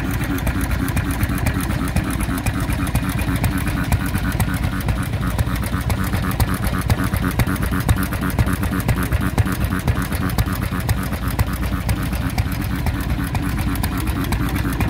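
1924 Cushman Cub single-cylinder stationary gas engine running steadily: a fast, even beat of firing strokes over a low drone.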